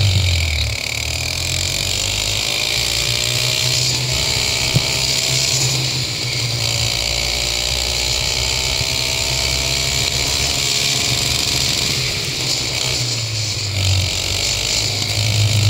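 Go-kart engine running at racing speed, its pitch rising and falling again and again as the revs change through the corners, over a steady low drone.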